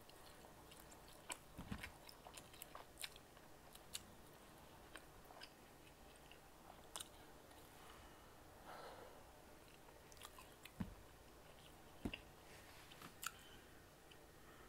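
Faint chewing of sauce-covered meatballs: soft, irregular mouth clicks and smacks scattered throughout, with a few soft low thumps.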